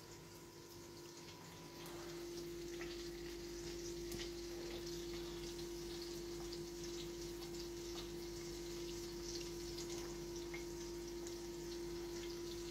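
Tomatoes frying in oil in a pan, a faint steady sizzle with scattered small crackles, over a steady hum.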